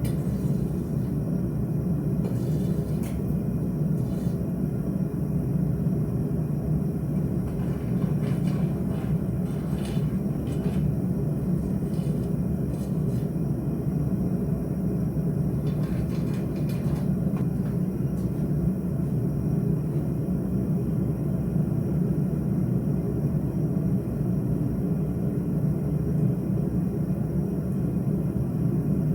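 A forge running steadily: a continuous low rushing noise, with a few faint light knocks.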